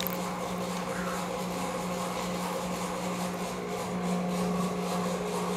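Small demonstration device that shakes sand with sound, running with a steady low hum and a rough buzzing rattle over it.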